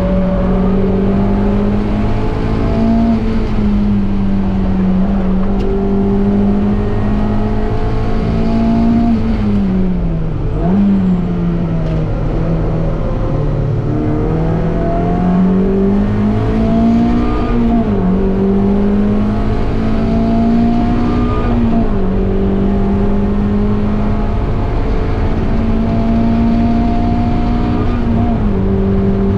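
Mazda MX-5 engine at race pace, revs climbing slowly through the gears with a sudden drop in pitch at each upshift, about four times. About ten seconds in the revs fall away under braking, blip up once on a downshift, then pull again.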